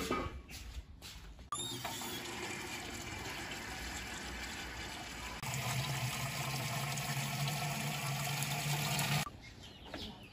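Water pouring from a plastic spout into the filler hole of a metal stove's water reservoir: a steady splashing fill whose tone changes about halfway through and then cuts off suddenly.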